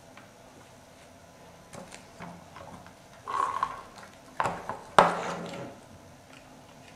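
LEGO bricks and plates clicking and clattering as they are pressed onto a model and handled, with a few sharp knocks; the loudest knock comes about five seconds in.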